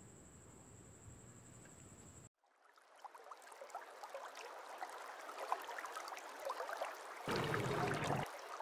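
Faint room tone with a thin steady high whine, cut off about two seconds in. Riverside ambience takes over: water lapping and trickling against a rocky shore with many small splashy ticks, growing louder, and a louder rush for about a second near the end.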